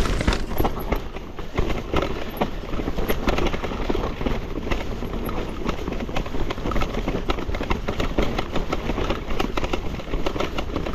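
Electric mountain bike rattling down a rough, rutted trail: a steady rumble of tyres over rock and ruts, with fast, irregular knocking from a loose frame-mounted pump.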